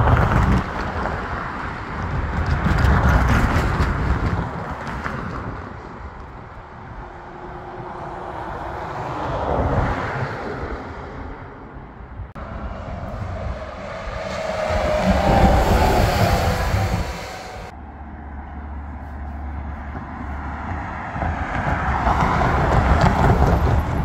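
Heavy diesel vehicles, a coach bus and a tractor-trailer, passing on a steep mountain downgrade with their engine brakes on. The engine noise swells and fades four times as each one goes by.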